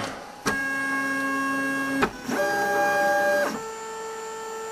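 3D printer's stepper motors whining at steady pitches as a print starts. There are three moves, each at its own pitch: the first begins about half a second in, the second follows after a short gap, and a quieter, lower tone holds near the end.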